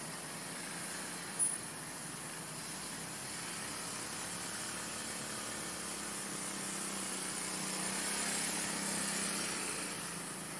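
Steady background hiss with a faint low hum that swells a little in the second half, and one brief click about a second and a half in.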